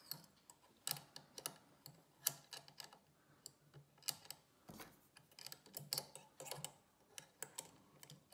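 Light, irregular clicks and taps of steel tweezers and a small tool against the brass plate and parts of a Breguet clock movement, as the escapement anchor is fitted into place.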